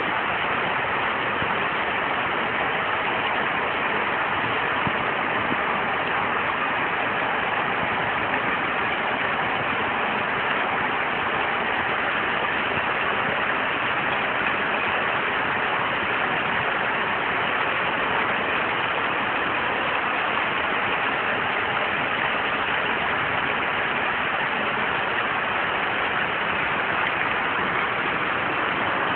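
Heavy rain falling, a steady even hiss that does not change.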